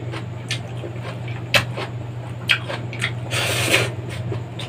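Close-up eating sounds from a person eating with his hands: short wet mouth clicks and smacks, with a brief slurp of noodles about three and a half seconds in, over a steady low hum.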